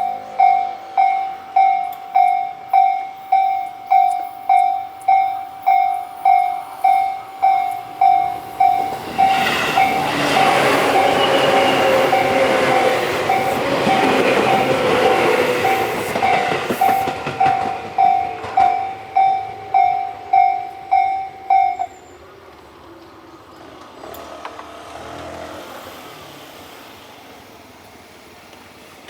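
Japanese level-crossing warning alarm ringing its electronic 'kan-kan' tone at a steady, unhurried pace of about one and a half strikes a second, while a train passes over the crossing from about nine to eighteen seconds in. The alarm stops about 22 seconds in once the train has cleared.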